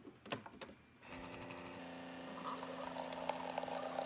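Single-serve pod coffee maker starting a brew: a few clicks as its button is pressed, then about a second in the pump starts a steady hum, and a couple of seconds later hot coffee begins streaming into a mug.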